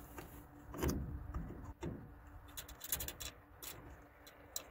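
Scattered light clicks and taps of a clear plastic fuel sampler pressed against an aircraft wing's fuel sump drain valve, drawing off a fuel sample to check it for water, with a few soft handling thumps.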